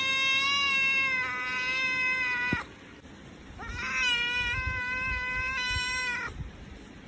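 A cat giving two long, drawn-out meows at a steady pitch, each lasting about three seconds, with a pause of about a second between them.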